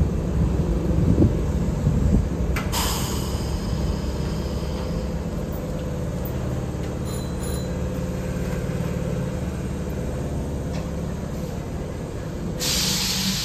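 Sanyo 3100-series electric train standing at the platform with its equipment humming steadily. Its doors close with a click and a short hiss about two and a half seconds in, and the train then pulls away, with a loud hiss starting near the end.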